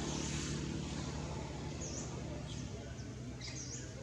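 A steady low motor hum runs throughout, with a few short high chirps from about two seconds in.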